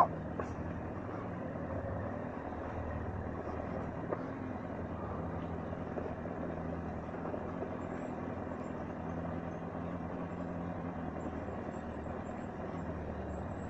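Motorcycle engine running steadily at low revs on a slow ride, an even low hum over some road noise.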